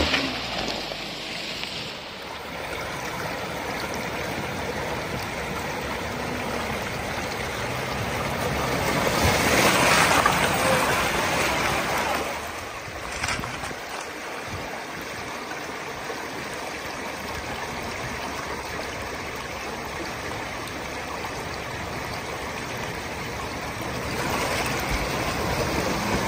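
Shallow river flowing fast over stones close to the microphone, louder for a few seconds near the middle.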